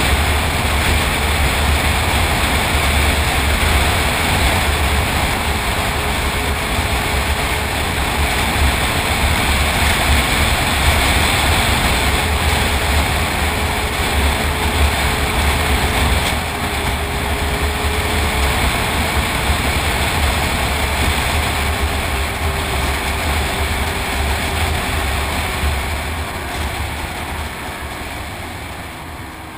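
Snowmobile engine running steadily at trail speed, with a dense rush of wind and track noise. Over the last few seconds it eases off: the engine note falls and the sound grows quieter.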